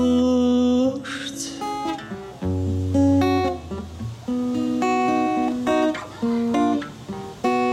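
Steel-string acoustic guitar being picked and strummed in chords, a string of separate chord changes with short gaps. A man's sung note is held at the start and fades about a second in, and singing resumes near the end.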